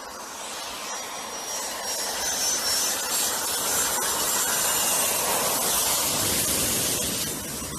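Jet engines of a cargo airliner on low approach passing close by: a rushing noise that swells as the plane nears and is loudest about five seconds in, with a thin high whine over the first few seconds. It fades near the end as the plane moves off toward touchdown.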